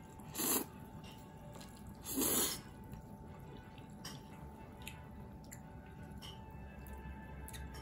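Two short, loud slurps of bibim-myeon noodles, about half a second and two seconds in, followed by soft chewing and a few light chopstick clicks.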